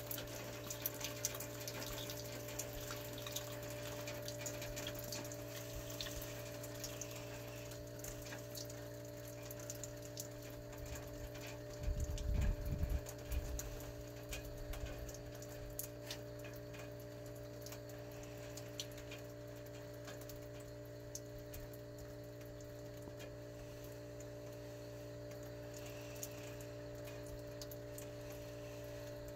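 Panasonic WC09H3E3 inverter heat pump's outdoor unit running its de-icing (defrost) cycle: a steady multi-tone hum with a watery trickling hiss and scattered ticks. About twelve seconds in there is a brief low rumble.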